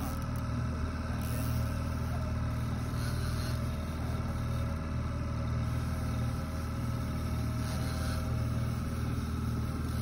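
Fishing boat's outboard motor running steadily at trolling speed: a low, even drone with a faint steady whine above it.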